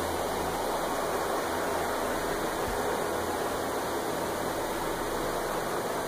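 Steady, even rushing noise with a faint low hum underneath; nothing starts or stops.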